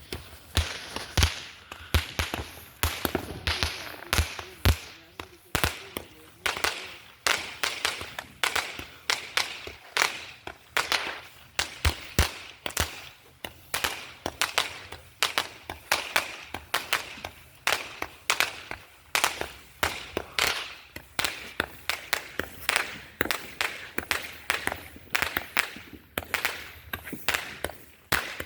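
Fireworks going off in a long, rapid series of sharp bangs and cracks, about two a second.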